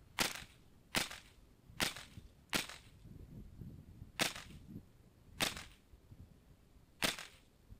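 Seven sharp shots from a .22 rimfire mini rifle fired in a stage, each with a brief ring after it. The first four come a little under a second apart; the last three are spaced more widely.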